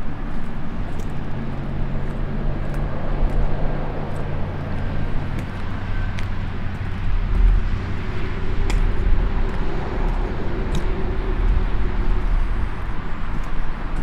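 Gumboot footsteps on a damp asphalt road over the steady low hum of a distant engine, whose pitch shifts about five seconds in.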